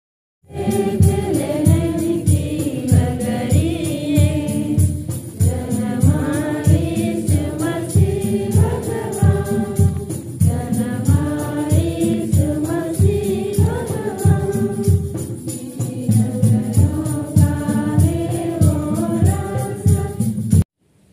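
A choir singing a hymn over a steady beat. It starts about half a second in and cuts off suddenly near the end.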